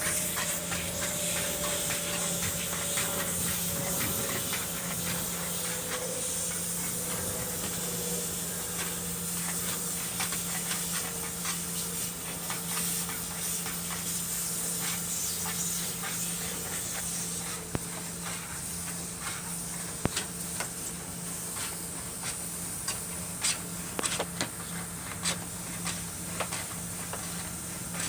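Dryer-vent cleaning machine running: a steady rush of air with a constant low motor hum. Scattered sharp clicks and ticks join it in the last third.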